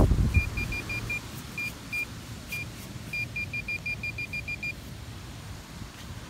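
Handheld metal-detecting pinpointer sounding short high beeps as its probe tip is worked through thick grass. A few scattered beeps become a fast steady run of about seven a second past the halfway point, as the probe closes in on a shallow coin, then stop.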